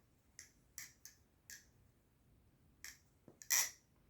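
New Era Abyss balisong being flipped, its handles clicking and clacking shut as it opens and closes: about seven short, sharp clicks at uneven intervals, the loudest near the end.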